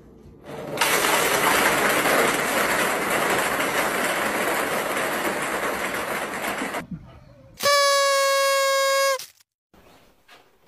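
A loud, steady hiss lasting about six seconds, then a single steady horn blast held for about a second and a half that cuts off sharply.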